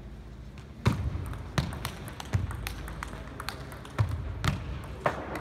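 Table tennis rally: the ball clicking sharply off the bats and bouncing on the table, a run of about ten quick taps that starts about a second in.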